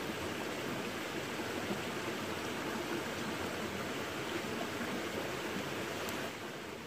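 Steady rushing of running water, which drops in level near the end.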